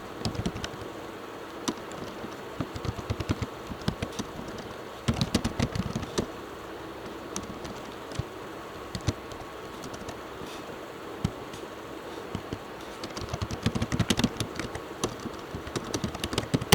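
Typing on a computer keyboard: bursts of quick keystrokes with short pauses between, busiest near the start and again toward the end.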